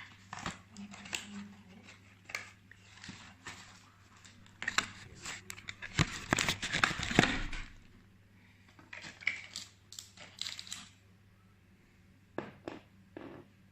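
Perfume box packaging being handled and opened: irregular rustling, crinkling and tearing with small clicks and taps. The busiest, loudest stretch is about six to eight seconds in, then only a few scattered clicks.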